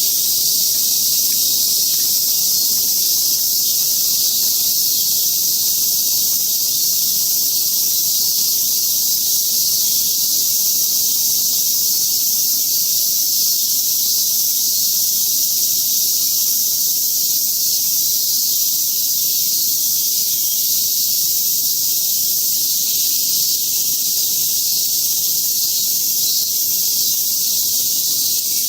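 Cicadas singing in a dense chorus: a loud, steady, high-pitched buzz that never lets up.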